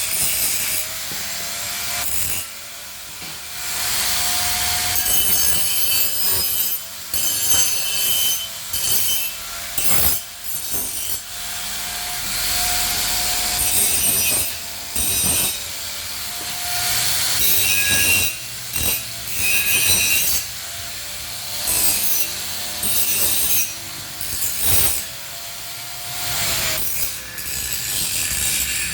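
Grinder running with a steady motor whine, repeatedly biting into metal in short stretches of harsh grinding noise: grinding the welded steel to clean it up and give it a shine.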